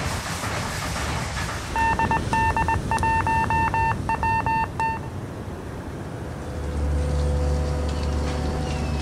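Morse code beeps from a hand-keyed telegraph key: a single tone keyed on and off in irregular dots and dashes for about three seconds. A low steady hum begins near the end.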